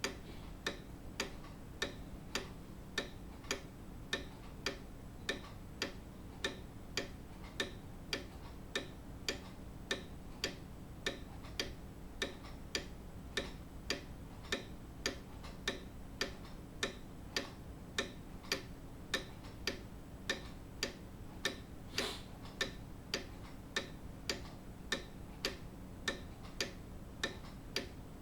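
Grandfather clock ticking steadily, its pendulum escapement giving even, regular ticks.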